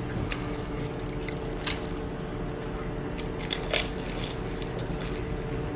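Flaky, syrup-glazed puff pastry (a butterfly pie) being torn apart and bitten: scattered crisp crackles and crunches with chewing, loudest about a second and a half in and again near four seconds.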